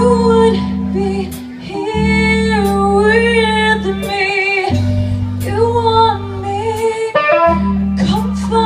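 Live band playing a song: lead vocals over electric guitar, bass guitar and drums, with long held bass notes and steady cymbal hits.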